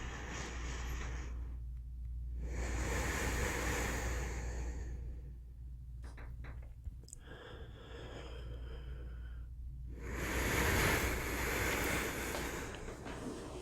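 Slow, calm human breathing: long, airy breaths in and out, each lasting two to three seconds with short pauses between, and a few small mouth clicks in the middle. A steady low hum runs underneath.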